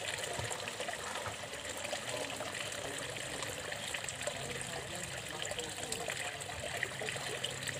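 Swimming-pool water trickling and lapping steadily, with no distinct splashes.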